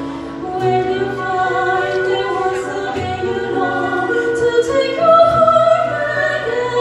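Operatic singing over instrumental accompaniment, with long held bass notes underneath from a double bass.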